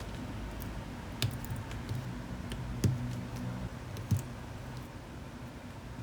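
Stabilized keys on a KBD67 Lite mechanical keyboard with stock stabilizers being pressed one at a time: about three separate deep clacks, over a second apart.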